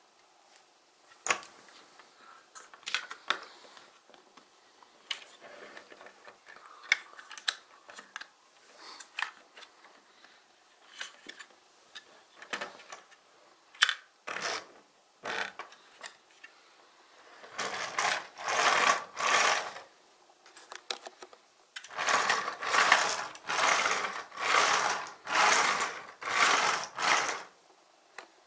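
Small clicks and knocks of snap-together plastic toy bricks as a building-block truck cab is handled and its hinged cab tilted. Then come about nine louder rasping strokes, each about half a second long: the toy truck's plastic wheels rolled back and forth across a wooden table.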